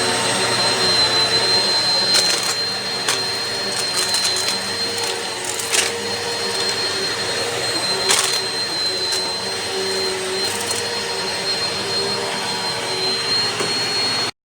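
Eureka PowerSpeed bagless upright vacuum cleaner running steadily with a high whine, with scattered clicks and rattles as debris is sucked up.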